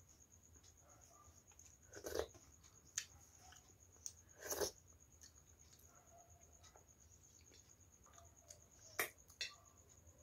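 Faint, sparse eating mouth sounds: about six soft smacks and clicks of chewing and finger-licking, with long quiet gaps between them.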